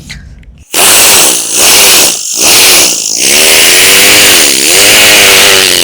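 A man imitating with his voice the engine of a vehicle whose silencer has burst: four loud revs, the last and longest one dipping in pitch about two-thirds of the way through and rising again.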